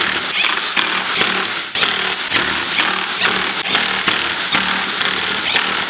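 Cordless impact driver hammering beadlock ring bolts down in a string of short bursts, one bolt after another, snugging them evenly in the tightening pattern before final torquing.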